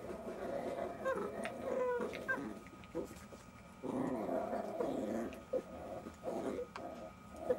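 Jack Russell Terrier puppies growling as they play-fight. There are a few short, high whines a second or two in, then steady rough growling from about four seconds on.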